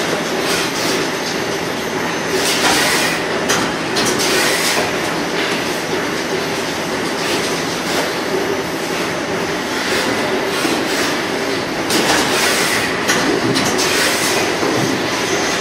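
Brother R650X2 CNC vertical machining center running: a steady, loud machining noise with a faint steady whine, growing louder and harsher for a few seconds about 2.5 s in and again about 12 s in.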